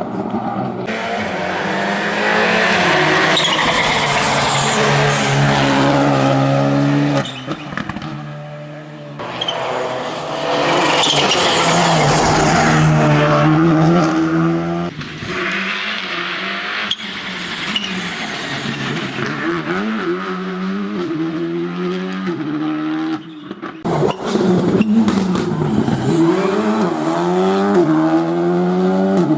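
Rally cars passing one after another at full throttle. The engines rev hard, their pitch climbing and dropping with gear changes, with a hiss of tyres and spray over the top.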